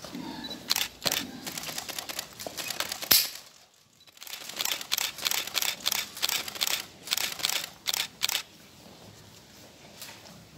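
Camera shutters clicking in quick runs of many shots, with a short pause about three and a half seconds in.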